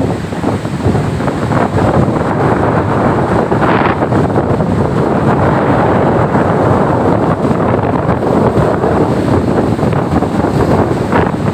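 Strong wind buffeting the microphone over the steady rush of breaking surf, with brief louder surges about four seconds in and near the end.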